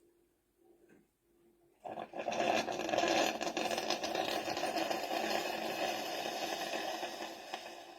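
Bean-to-cup coffee machine running: a loud mechanical whirring and rattling noise starts suddenly about two seconds in and holds steady, easing off near the end.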